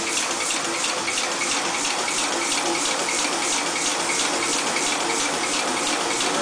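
Massey 3cwt pneumatic power forging hammer running: a steady rushing of air pulsing evenly about three to four times a second as its compressor cycles.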